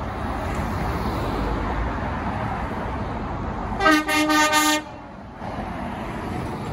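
A truck horn sounding a burst of quick toots lasting about a second, some four seconds in, over the steady rumble of passing vehicles.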